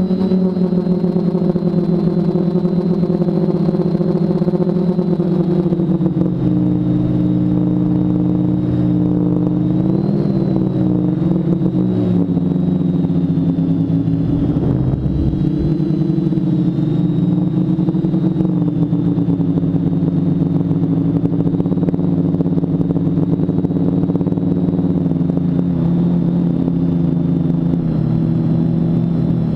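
TBS Discovery quadcopter's four Bird Dog 900kv brushless motors spinning 10x4.5 propellers in flight, a steady buzzing hum. The pitch drops about six seconds in and then wavers up and down with the throttle.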